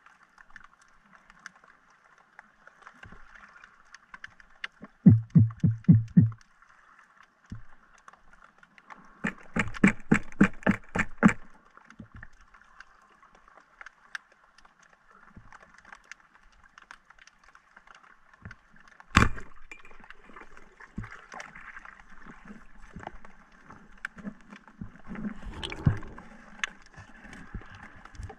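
Underwater sound as picked up by a diving camera: a steady faint hiss of the sea, broken by a quick run of about eight loud knocks around five seconds in, a rattling burst of rapid sharp clicks a few seconds later, and one single sharp click about two-thirds of the way through, with rougher water noise building toward the end.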